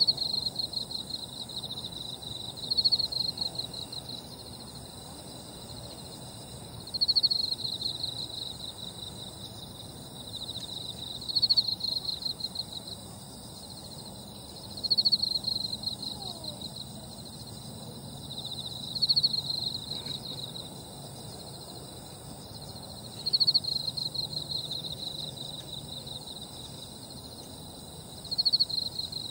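Summer-night insects in grass: one insect chirps in pulsed trills about every four seconds, each starting loud and fading, over a steady high-pitched drone from other insects.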